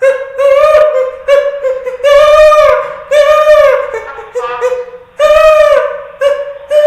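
A man imitating a parrot with his voice: a run of about ten loud, high, squawking calls, each held on nearly the same pitch and bending at the ends.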